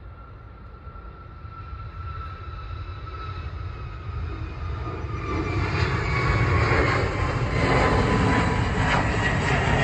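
Twin-engine jet airliner climbing past, its engine noise building up and getting loud about five seconds in, with a thin whine slowly falling in pitch.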